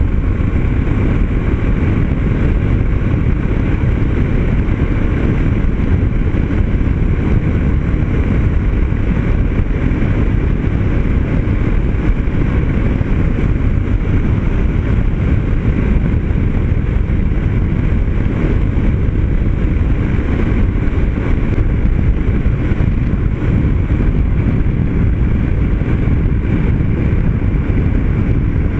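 Steady wind rush on the microphone over the drone of a Yamaha Ténéré 250's single-cylinder engine, cruising at about 90 km/h.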